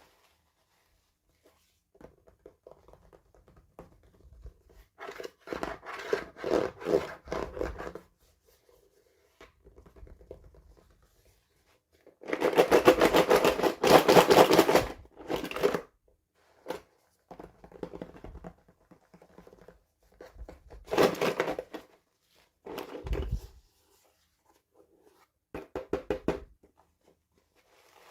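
Toy packaging being handled and opened: irregular bursts of tearing, scratching and crinkling, the loudest stretch about halfway through and shorter bursts near the end.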